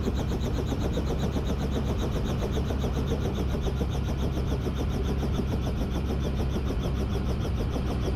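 Robinson R44 Raven II helicopter running: the steady drone of its six-cylinder Lycoming engine under a fast, even chop from the main rotor blades.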